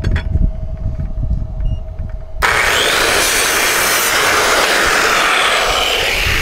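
Corded circular saw starting about two and a half seconds in and cutting through a wooden board, running loud and steady.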